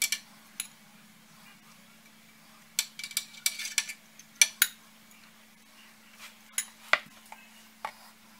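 A metal spoon and a glass bowl of chopped nuts clinking together: two sharp clinks at the start, a quick cluster about three seconds in, then single clinks spaced out towards the end. A faint steady low hum runs underneath.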